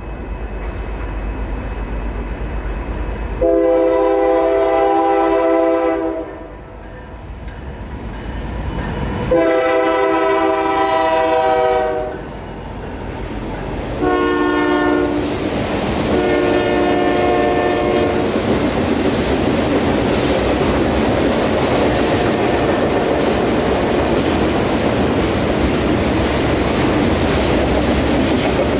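Diesel freight locomotive's multi-chime air horn sounding the grade-crossing signal: two long blasts, a short one and a long one. After it, the loaded ribbon rail cars roll past with a loud, steady rumble and clatter of wheels on rail.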